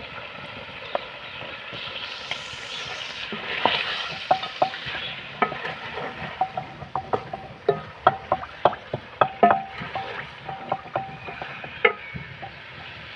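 Chicken, onions and tomatoes sizzling in oil in an aluminium pot while a wooden spoon stirs them, scraping and knocking against the pot. The sizzle swells a couple of seconds in as the tomatoes go in, and from about four seconds in the knocks come thick and fast, some ringing briefly off the metal.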